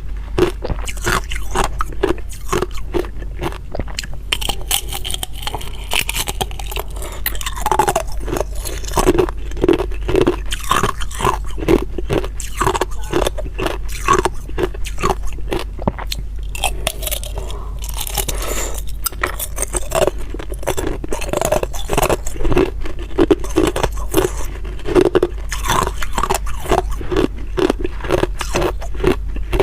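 Hard ice being bitten and chewed close to the microphone: a steady run of sharp, irregular crunches and scrapes as the cubes crack between the teeth.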